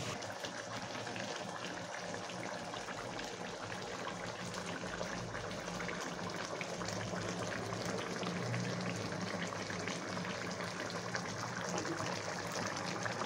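Rohu fish curry gravy simmering in an aluminium kadai: a steady bubbling with many small popping crackles. A low steady hum runs underneath.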